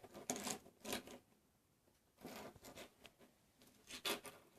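Faint, scattered rustles and light scrapes of small objects being handled, a few short ones in the first second and more around the middle and near the end.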